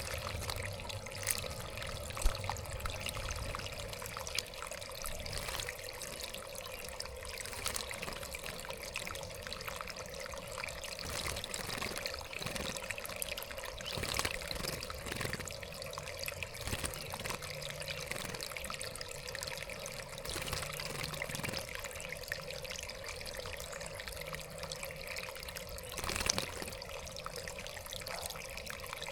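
Water steadily trickling and splashing in a backyard bird bath, with many small drips and splashes throughout.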